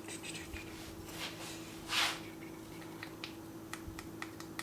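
Light clicks and taps of a spoon and spice container while a teaspoon of pumpkin pie spice is measured out, with one short rustling swish about two seconds in. A faint steady hum sits underneath.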